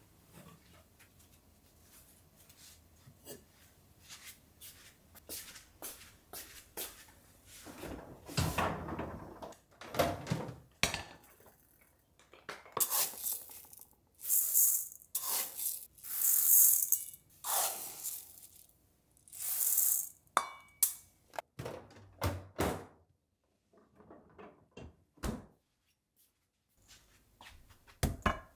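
Raw rice scooped with a small cup from a pull-out rice bin and poured into a bowl: several short rushes of falling grain through the middle stretch, with scattered clicks and knocks of the bin lid and containers before and after.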